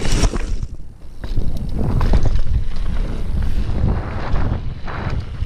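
Wind buffeting the action camera's microphone while a Diamondback hardtail mountain bike rides singletrack, with surges of tyre and trail noise and a brief lull about a second in.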